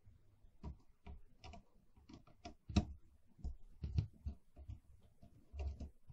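Screwdriver working at a screw on a mixer's circuit board: a string of irregular small clicks and taps of metal on the screw and board, loudest about three and four seconds in.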